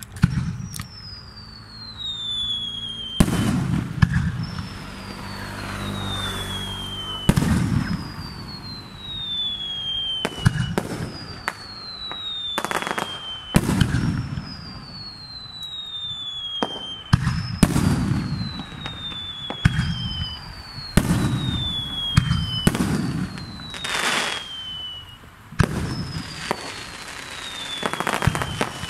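Japanese fireworks display: sharp bangs of bursting shells, each trailed by a low rumble, mixed with a whistle that falls in pitch, repeating about every three seconds.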